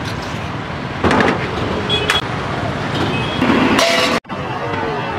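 Steady street-side din of traffic at a food cart, with short metallic clinks of steel vessels and utensils. The sound drops out for an instant about four seconds in and comes back changed.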